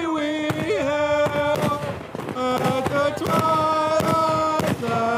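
Aerial fireworks bursting in a rapid series of sharp bangs, about two a second, over a melody of held notes from music or singing.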